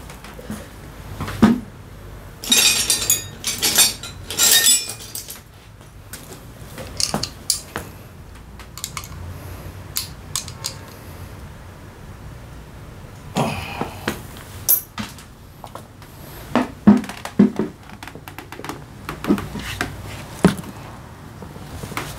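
Metal parts of a scooter starter motor clinking and knocking together as they are handled and fitted, with a few short rasping rattles in the first few seconds.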